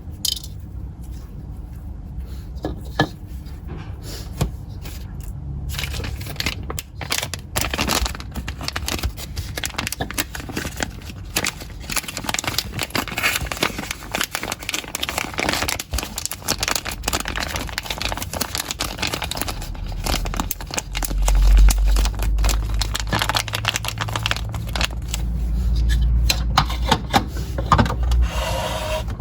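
Close-up crackling, crinkling handling noise, thick and continuous from about six seconds in, with heavy low thumps added in the second half.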